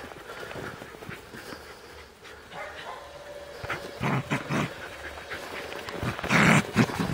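Scottish terrier making short vocal sounds while playing with a football in snow: a few brief ones about four seconds in and a louder one near the end.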